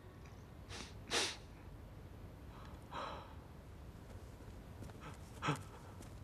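A man weeping, drawing four short, sharp sobbing gasps for breath; the loudest come about a second in and near the end.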